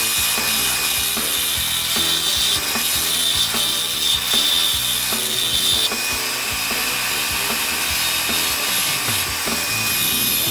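Wood lathe spinning a pen blank of hard stabilized marblewood while a skew chisel, used as a scraper, cuts across the grain, played back at four times speed. The cutting is a continuous rough scraping, with a high whine that comes and goes.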